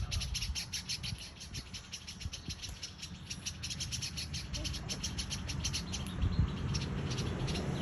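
Small songbirds calling in a fast, unbroken series of sharp chirps, several a second: alarm calls from the parent birds and their flock mobbing a snake that is closing in on the nest of hatchlings.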